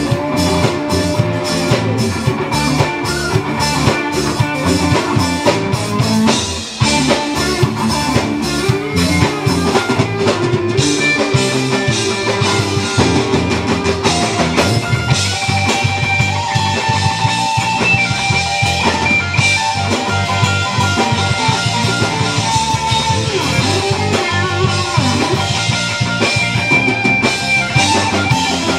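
Live rock band playing: bass guitar and electric guitar over drums keeping a steady beat.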